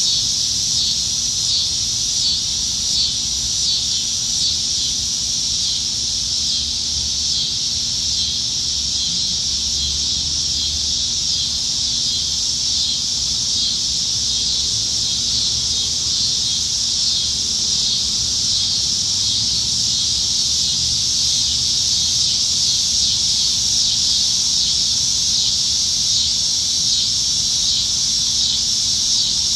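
A chorus of cicadas singing in the trees: a loud, continuous high-pitched buzzing drone that pulses rhythmically for the first several seconds, then settles into a steadier hum.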